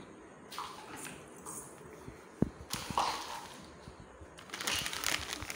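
Plastic food packets rustling and crinkling as they are handled, with one sharp tap a little over two seconds in as a packet is set down on the marble counter.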